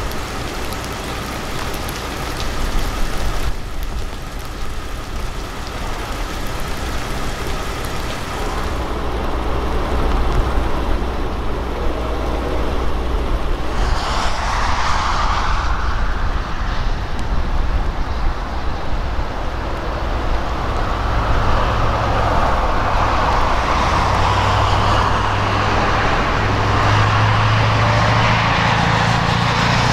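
Steady outdoor rushing noise by a flooded river choked with ice, changing character about halfway through, with a steady low engine hum coming in about two-thirds of the way through.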